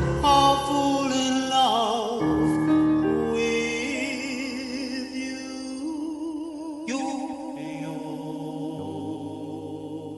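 A 1950s doo-wop vocal group sings the closing phrase of a slow ballad in close harmony with vibrato over a band backing. About seven seconds in it settles on a long held final chord that starts to fade.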